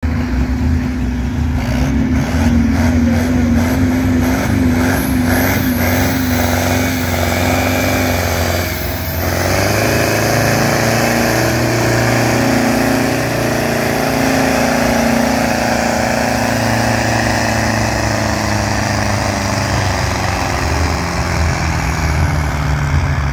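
Farm tractor engine at full throttle, pulling a weight-transfer sled. The note wavers for the first several seconds, dips briefly about nine seconds in, then runs hard and steady to the end of the pull.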